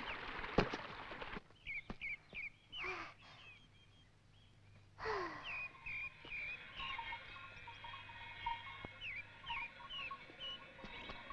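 A brief splash of stream water, then short, high bird-like chirps repeating over quiet background music.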